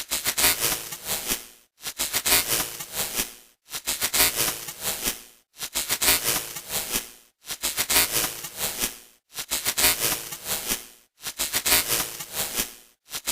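Broken-TV static sound effect: crackling, hissing bursts of noise, each just under two seconds long and cut off by a brief silent gap, repeating evenly.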